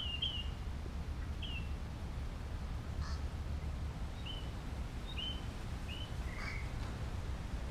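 Birds calling outdoors in short, high chirps, one every second or so, over a steady low rumble.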